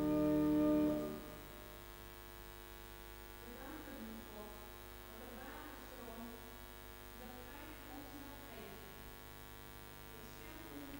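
Church organ holding a chord that stops about a second in, leaving a steady electrical mains hum.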